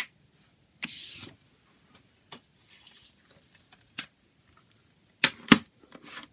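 Handling a CD booklet and a plastic CD jewel case: a short paper slide about a second in, a few light clicks, then two sharp plastic clacks near the end as the jewel case is handled and set down on the table.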